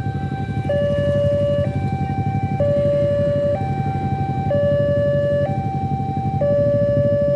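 Railway level-crossing warning alarm sounding its two-tone electronic chime, a higher and a lower tone alternating about once a second, with a low engine rumble underneath.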